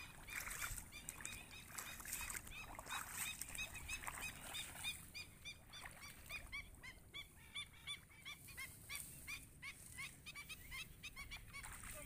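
Pied stilts calling: a quick, continuous run of short, sharp yelping notes, several a second and overlapping, as from a flock.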